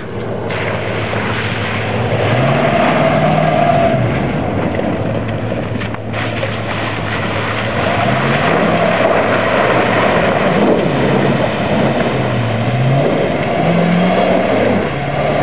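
Dodge Ram 1500 pickup engine revving up and down several times as the truck drives through mud in two-wheel drive.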